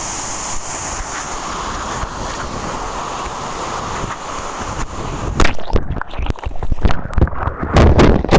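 A steady rushing noise, then from about five seconds in, loud uneven gusts of wind buffeting the microphone.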